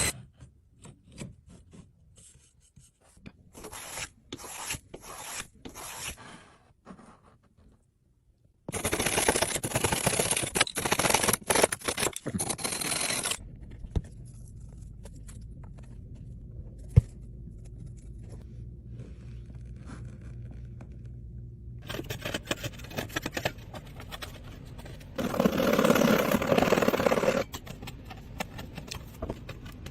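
Wood being scraped and worked by hand in a series of short separate strokes, then longer, louder stretches of scraping. A low steady hum runs under the middle part.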